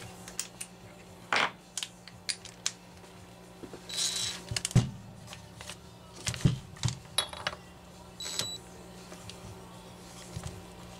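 Metal hand tools clinking and knocking as a socket is handled and fitted to a nut, with a couple of brief ringing metallic clinks, about four seconds in and again past eight seconds. A steady low hum runs underneath.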